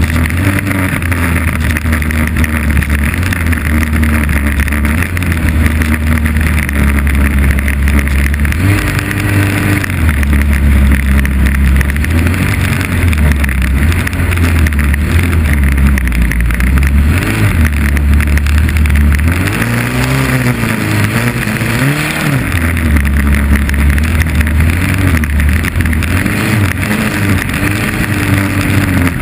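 Onboard sound of a 2.5 Liter Stock inboard hydroplane's four-cylinder engine running hard at racing speed, with wind and water noise. The revs waver and drop about two-thirds through, then climb again.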